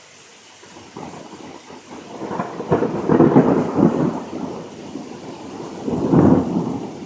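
Thunder rumbling in two loud rolls over the steady hiss of heavy rain: it builds from about a second in, peaks around three seconds in, dies back, and swells again near the end.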